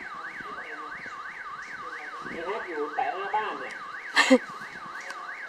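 Electronic siren-like alarm warbling steadily up and down about two and a half times a second, with faint voices in the middle and one short, sharp loud sound a little after four seconds in.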